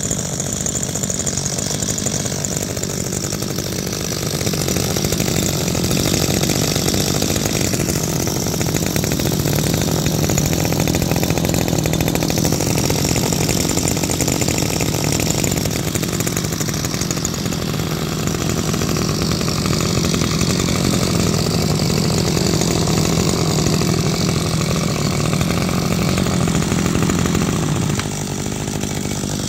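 Small two-stroke engine of a Maruyama 32cc brush cutter running steadily; it gets a little louder a few seconds in and drops in level shortly before the end.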